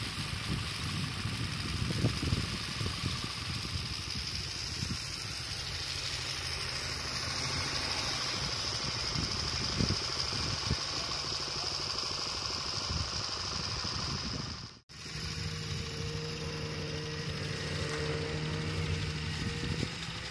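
Snowmobile engine running with a steady hiss. After a cut about fifteen seconds in, it settles into a steady idle hum.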